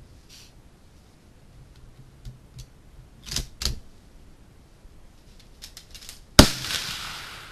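Ruger American bolt-action rifle in .308: the bolt is worked with two sharp metallic clicks about three and a half seconds in, then a single loud shot about a second before the end, with a long fading tail.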